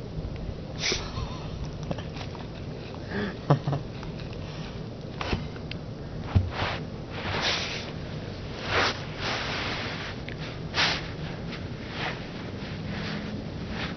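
A beagle sniffing and snorting hard with its nose pushed into the carpet, in short noisy bursts at irregular intervals.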